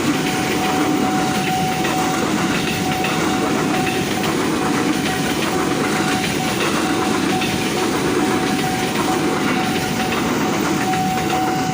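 Train passing close by: a steady, loud rumble of wheels on rail with a single steady high tone held throughout.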